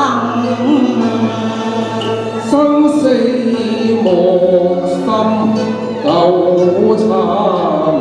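A man and a woman singing a duet into microphones over musical accompaniment, with long held, sliding notes; the man is singing in the second half.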